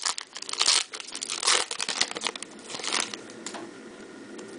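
A trading card pack's wrapper crinkling and tearing as it is opened, in quick irregular crackles that die away after about three and a half seconds.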